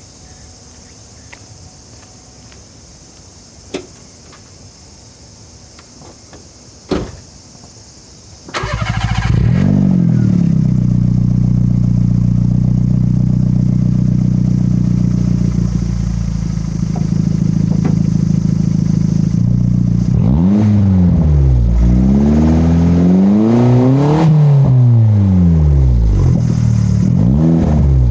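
Daihatsu Mira TR-XX Avanzato R's small four-cylinder turbo engine, through an aftermarket all-stainless Style-Bay Final F2 exhaust, starting about a third of the way in after two short clicks, then idling steadily. From about two-thirds in, the throttle is blipped several times in a row, the revs rising and falling.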